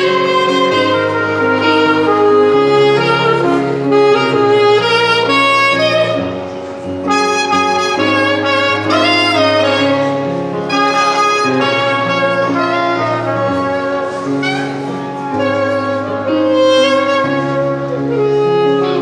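Instrumental music: a melody of held and moving notes over sustained bass notes.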